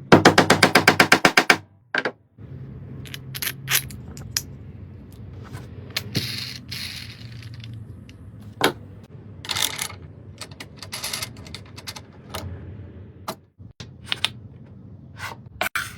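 Workbench handling sounds: a rapid run of about nine sharp clicks at the start, then scattered scrapes, taps and knocks of tools and workpieces being handled.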